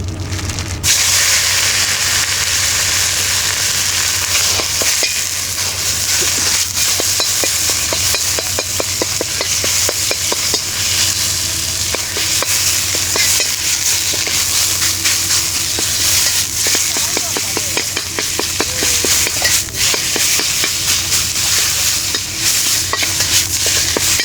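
Food sizzling in a hot pan, starting suddenly about a second in, with a utensil stirring and clicking against the pan throughout.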